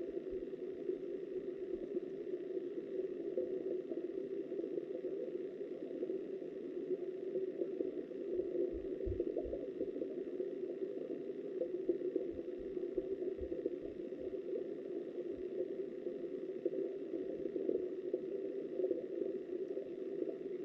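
Steady, muffled rush of flowing stream water heard from an underwater camera, with a few faint low thumps around the middle.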